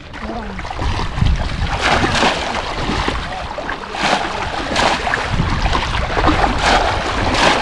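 Shallow floodwater splashing and sloshing as bamboo polo basket traps are thrust down into it and waded through, with louder splashes every second or two as the traps hit the water.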